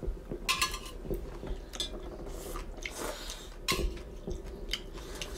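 Chopsticks clicking and scraping against a thin aluminium pot lid used as a plate, several light clinks spread over a few seconds.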